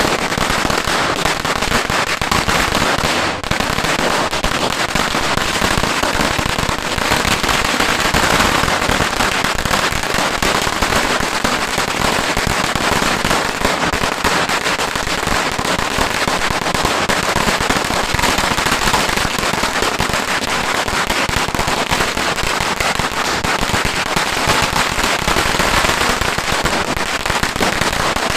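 A 3,000-round Dreamlight sawa firecracker string going off in a continuous, rapid crackle of densely packed bangs, steady throughout.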